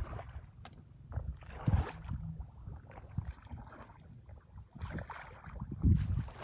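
Shallow muddy water splashing and sloshing in irregular bursts as hands work through it, louder about two seconds in and again near the end.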